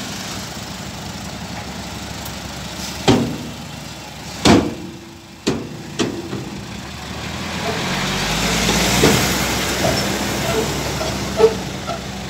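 Nissan UD dump truck's diesel engine running as the emptied tipper body is lowered, with four sharp bangs between about three and six seconds in. The engine then grows louder as the truck pulls away.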